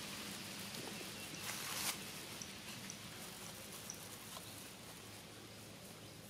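Faint outdoor background with a brief rustle about a second and a half in, then a few faint high chirps and small ticks.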